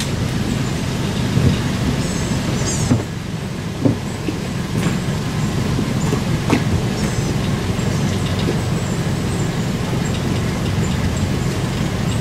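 Pickup truck engine idling steadily, with a few sharp knocks and clunks as a man climbs into a small jon boat sitting on its trailer.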